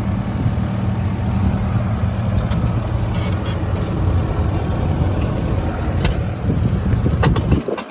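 Diesel engine of a Case TV370 tracked compact loader idling steadily with a low hum. A few sharp clicks come near the end, and the engine sound then drops away abruptly.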